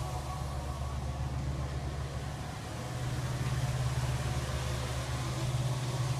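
Kongskilde suction blower, a pneumatic grain conveyor, running steadily: a continuous low machine drone with rushing air over it, growing a little louder about halfway through.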